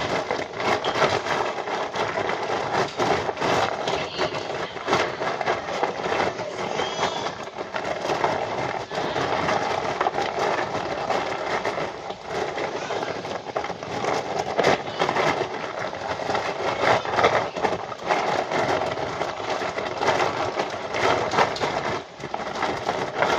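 Dinosaur stampede sound effect: a continuous dense din of many overlapping pounding and clattering impacts that never pauses.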